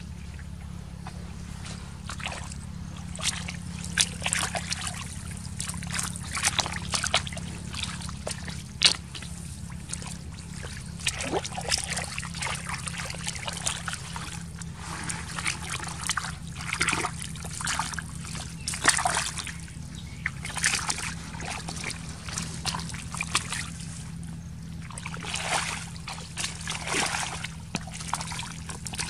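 Shallow muddy water and wet mud being worked by hand and trodden through: irregular splashing, sloshing and squelching throughout, over a steady low hum.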